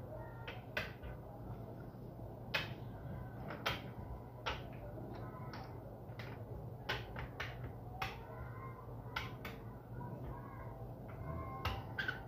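Bottle-cap game pieces being set down one by one on a plastic tabletop: about a dozen sharp little clicks at irregular intervals.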